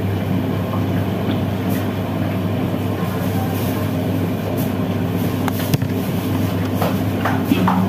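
Steady droning hum of a commercial kitchen's extractor hood ventilation, with a few sharp knocks of kitchen utensils in the second half.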